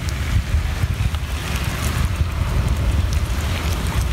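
Wind buffeting the microphone, a constant fluttering low rumble, over a steady hiss.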